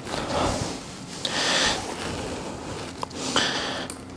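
Gloved hands rustling among a motorcycle's wiring and plastic fuse box, with a few small clicks and short hissing rustles.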